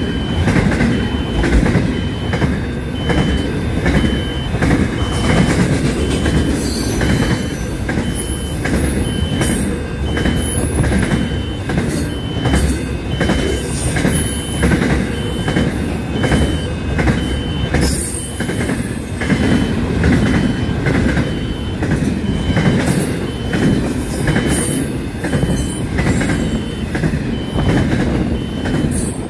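Container freight train passing at speed close by: a steady rumble with regular clicks of wheels over rail joints and brief high squeals of the wheels. A steady repeating electronic beep sounds throughout.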